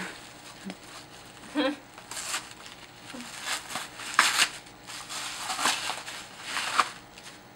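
Gift wrapping paper crinkling and tearing as a present is unwrapped by hand, in several irregular rustling bursts, the loudest about four to five seconds in.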